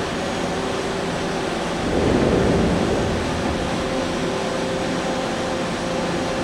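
Haas VM3 vertical machining center running: a steady mechanical hum with faint steady tones, swelling louder for about a second roughly two seconds in.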